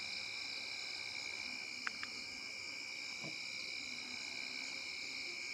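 Steady chorus of night insects, crickets trilling at several high pitches without a break, with two faint clicks about two seconds in.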